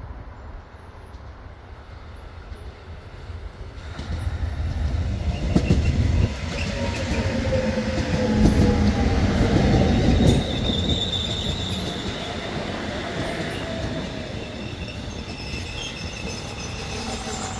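Korail 341000-series electric commuter train pulling into a station. Its wheels rumble on the rails, loudest about halfway through as the cars pass close, with a motor whine falling in pitch as it slows and a thin high squeal from the wheels.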